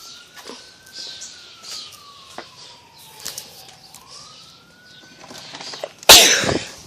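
A distant siren wailing, its pitch sliding slowly up and down in long cycles. About six seconds in, a loud burst of rustling noise cuts across it.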